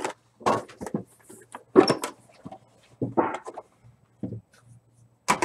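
A trading-card box lid being lifted off and the box handled on a table: a handful of short scrapes and knocks, about five in all.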